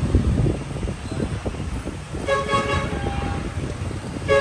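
Street traffic rumble with a vehicle horn honking: one longer honk about two seconds in and a short second honk at the end.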